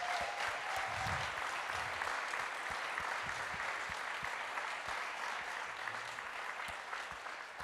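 Congregation applauding steadily, easing off slightly near the end.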